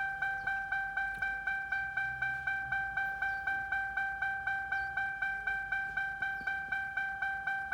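2006 Lincoln Town Car's electronic warning chime dinging over and over, about three times a second, with no change. It is typical of the key being left in the ignition with a door open.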